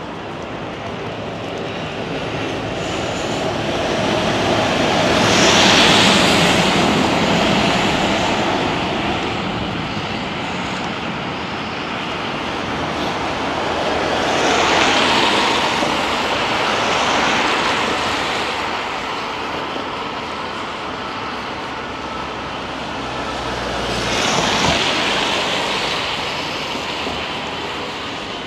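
Street traffic: cars passing one after another with a steady hiss of tyres on a wet road, swelling and fading four times as they go by.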